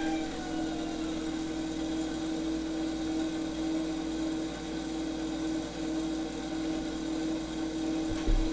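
Steady mechanical hum with one strong low tone.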